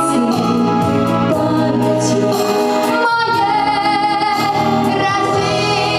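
A young woman singing a slow song into a microphone over instrumental accompaniment, holding a long note with vibrato in the second half.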